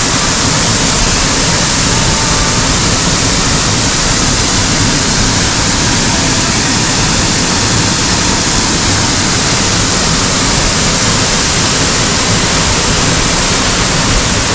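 Waterfall water pouring in a loud, steady rush.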